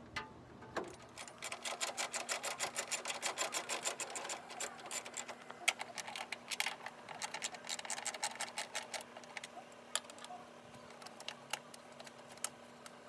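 Socket ratchet clicking rapidly in a long run as a 12 mm bolt is backed out, then slower, scattered clicks and a few sharper knocks of metal tools.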